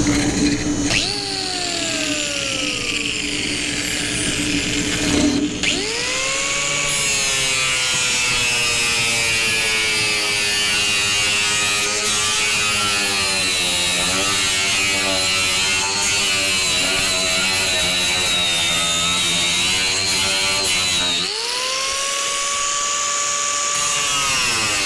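Electric angle grinder motor spinning up about six seconds in, then running with its whine dipping and wavering as it works the metal. It spins up again near the end.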